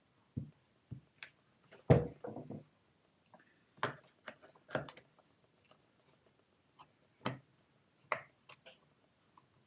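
Scattered knocks, clicks and light rattles of a rotary hammer drill's plastic housing being handled and prised open. The loudest is a knock followed by a short rattle about two seconds in.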